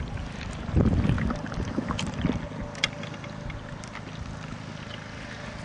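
Wind buffeting the microphone, strongest about a second in, with a few short sharp clicks and knocks from handling the bottle and cap.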